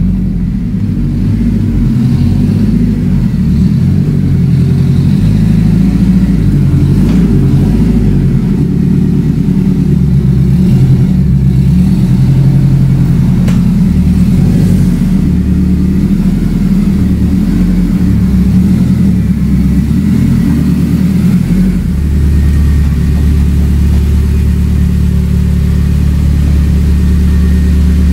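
Turbocharged Honda Civic Type R FN2's 2.0-litre four-cylinder engine running after sitting for about seven months, its revs rising and falling unevenly, then settling to a steady idle about three-quarters of the way through. It sounds all right, healthy after the long lay-up.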